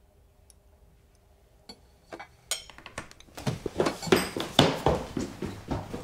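A few light clinks of cutlery on a plate, then, from about two and a half seconds in, a loud run of irregular clattering hits.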